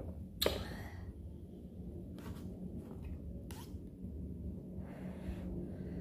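Aluminium can of grape soda pulled open about half a second in: a sharp pop and a short fizzing hiss. Two fainter brief sounds follow.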